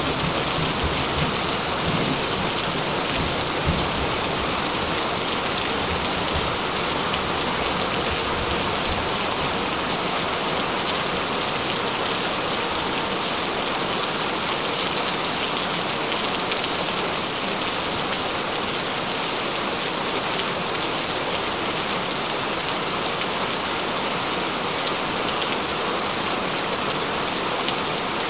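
Steady, even hiss of heavy falling water, like a constant downpour, with a low rumble dying away in the first few seconds.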